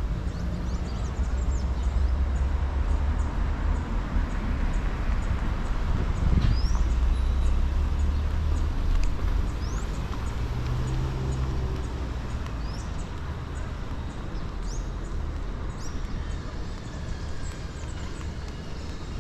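Outdoor ambience: a steady low rumble, with short high bird chirps scattered throughout.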